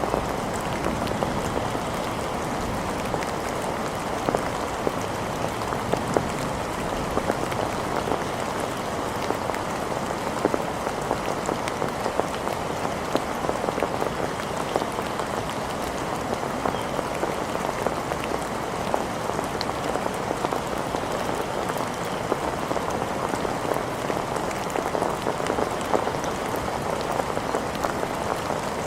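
Steady rain falling and pattering on hard surfaces, with many small drop ticks.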